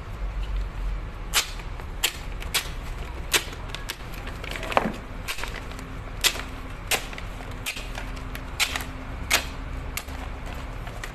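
Sharp metal clicks and clinks, about nine of them at uneven intervals, as piston rings are handled and fitted onto the pistons of a HOWO truck diesel engine, over a steady low hum.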